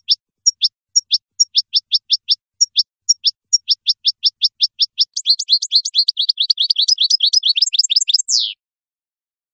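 European goldfinch singing one song phrase: a run of short, falling chip notes, about three a second, that speeds up about halfway into a rapid twittering and ends on a falling slur.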